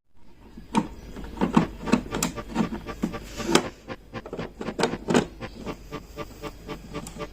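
Irregular clicks and light knocks of parts being handled on a home espresso machine, over a faint steady low hum.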